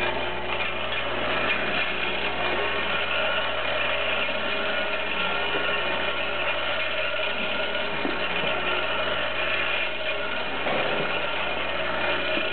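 Hex head bolt stepper feeder running: a steady mechanical running noise with a constant hum.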